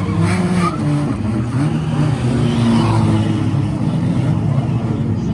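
Several banger-racing cars' engines running and revving together, their overlapping notes rising and falling.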